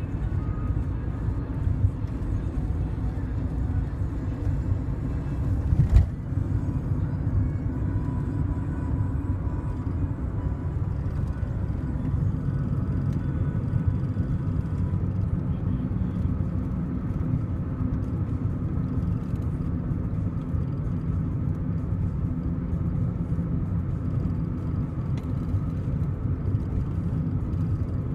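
Steady low rumble of road and engine noise heard from inside a moving car. A single sharp thump comes about six seconds in.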